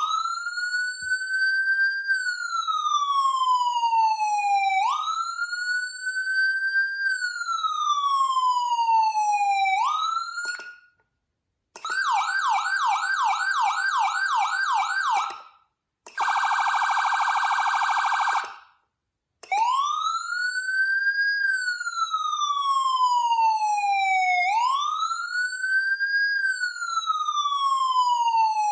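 Whelen CenCom Sapphire electronic siren sounding a series of tones with short breaks between them. It opens with a slow wail, each cycle rising quickly and falling over about five seconds. A fast yelp follows at about three sweeps a second, then a very rapid warbling tone, and after a gap the slow wail again.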